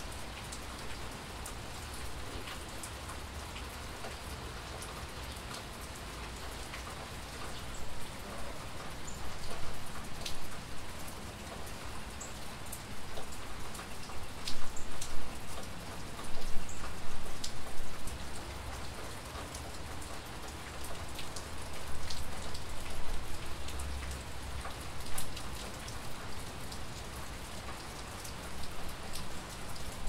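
Steady rain falling. From about eight seconds in, scattered louder drops tick and patter over the constant hiss, and the sound rises and falls in gusts.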